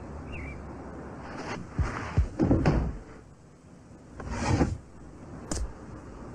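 A few soft thumps, then a dresser drawer sliding open, about four seconds in, with a sharp click as it stops.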